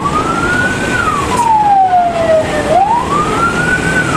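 Wailing siren, its pitch rising for about a second and then falling slowly, repeating about every three seconds, over a steady low rumble.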